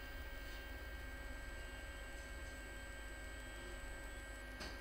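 Faint, steady electrical mains hum with a few thin steady tones above it, and a faint tick near the end.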